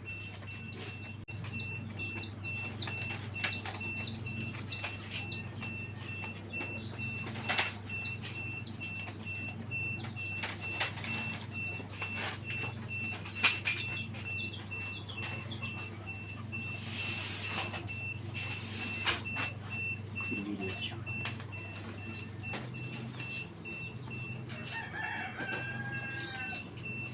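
Chickens clucking and calling, with a rooster crowing near the end, over a steady low hum and scattered clicks and knocks.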